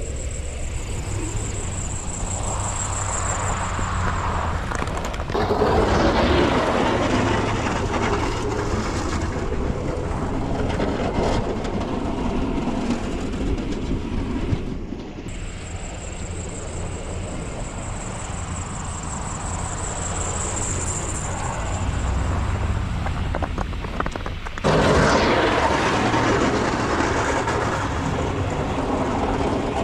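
Vehicle engine running steadily with a low hum and a faint high whine, its noise swelling abruptly about five seconds in and again near the end.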